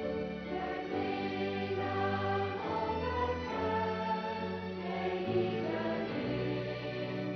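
Mixed choir of women, girls and men singing in harmony, holding chords that change about every second.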